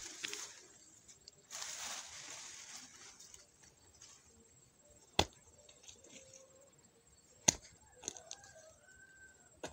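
A hoe working a muddy riverbank. About a second and a half in there is a scrape of soil being dragged for about a second, then sharp strikes of the blade into the ground: two loud ones a little over two seconds apart, and a few smaller ones near the end.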